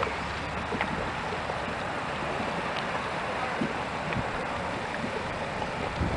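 Bubbling mud pot: a steady hissing noise with a few soft, scattered pops.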